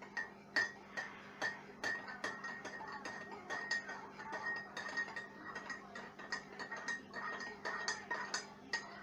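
A spoon stirring sugar into a mug of coffee, clinking against the sides of the cup over and over with a short ringing note. The clinks come about twice a second at first, then quicker and more uneven.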